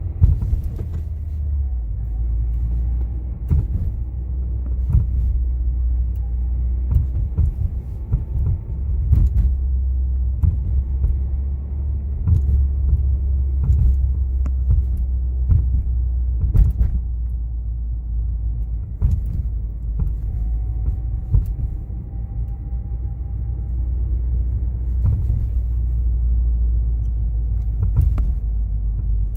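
2016 Subaru WRX on the move, its turbocharged flat-four exhaust making a steady low rumble with occasional knocks. A faint whirring whine rises and fades now and then. The owner suspects the differential; a dealer called the whir normal.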